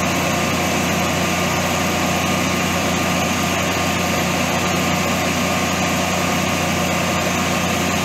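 Generac-built Honeywell standby generator's air-cooled OHVI engine running steadily at its constant governed speed, an even drone with a low hum, while the set is generating about 240 volts.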